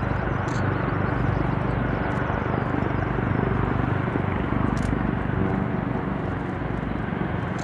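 Boeing 777-200ER's two Rolls-Royce Trent turbofan engines running at taxi power as the airliner taxis past, a steady engine noise with a low hum.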